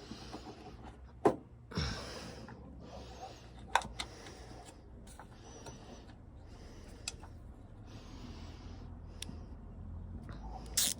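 Hand socket ratchet working a bolt on a truck door latch: repeated strokes about once a second, each a quick run of pawl clicks, with a few sharp metal knocks between.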